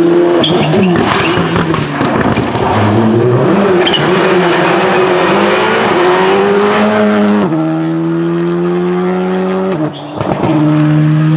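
Rally cars at full stage speed, engines revving hard and climbing in pitch, with quick drops at each gear change. The sound changes abruptly about 7.5 s and 10 s in, as one car's note gives way to another's.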